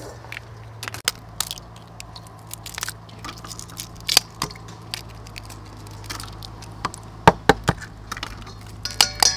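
Eggs being tapped and cracked open over a stainless steel bowl: a series of sharp taps and shell cracks, with three loud knocks in quick succession about seven seconds in.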